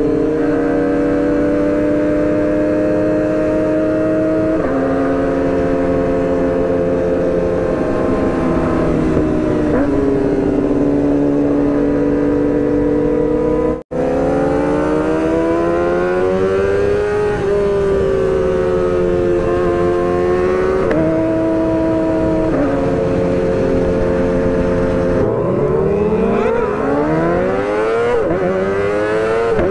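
Sport-bike engine running at riding speed, its note holding steady for stretches, then stepping and gliding up and down as the revs change through the gears. The sound drops out for an instant about halfway through.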